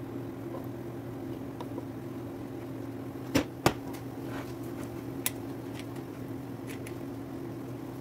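Steady low hum, with two sharp knocks about three and a half seconds in and a fainter tick a little later: kitchenware knocking as a wooden spatula scrapes thick chili paste from a pan into a glass jar.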